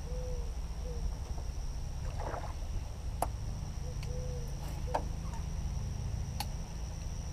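Open-air boat ambience: a steady low rumble with a faint high steady whistle over it, two short rising-and-falling whines about four seconds apart, and a few sharp clicks.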